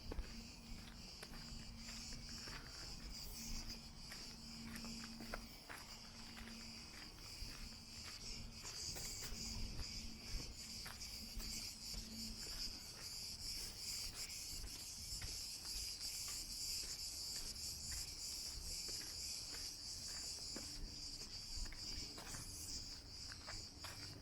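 A steady, high-pitched chorus of insects chirping, growing louder about a third of the way in, with faint footsteps on a path.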